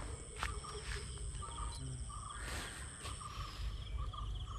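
Birds chirping in short repeated notes, with a steady high-pitched whine that stops about three seconds in, over a low background rumble.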